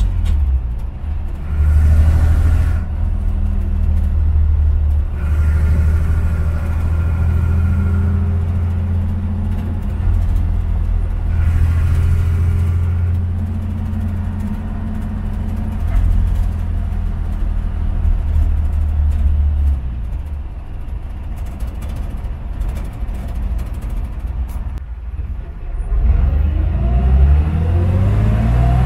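1949 Chevrolet 3600 pickup's 292 inline-six engine running under way, heard from inside the cab. It runs steadily, eases off for a few seconds past the middle, then rises in pitch as the truck accelerates near the end.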